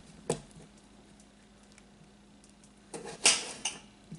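Small kitchen knife cutting a potato into cubes, the blade clicking down onto a glass cutting board: one click about a third of a second in, then a quick run of four clicks near the end.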